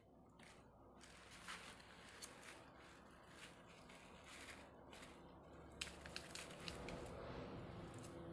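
Faint rustling and scratching with scattered small clicks, a few sharper ones near the end: a young puppy chewing and tugging at a fluffy slipper on artificial grass.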